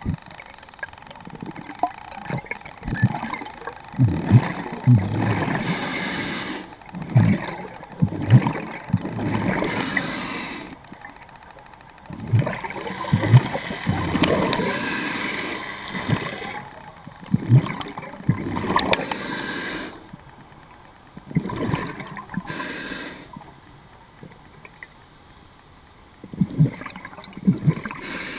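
Muffled underwater gurgling and bubbling, heard through a camera housing, coming in irregular bursts of a second or two with low thumps between.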